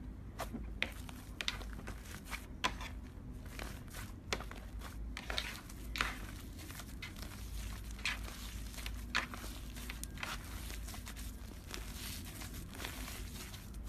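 Slime mixed with shaving foam being squished and stretched by hand, giving irregular sticky pops and crackles every half second or so over a faint steady low hum.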